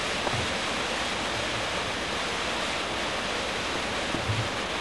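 Steady rushing of a waterfall, with a couple of faint low thumps, one just after the start and one near the end.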